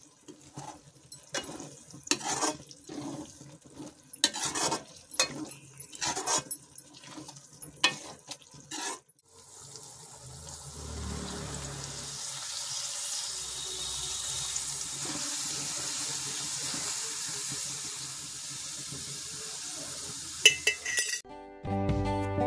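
A metal slotted spoon stirring and scraping peas in gravy in a steel kadai, with irregular clicks and scrapes for about nine seconds. Then a steady sizzling hiss as chopped spinach goes into the hot pan, and acoustic guitar music comes in near the end.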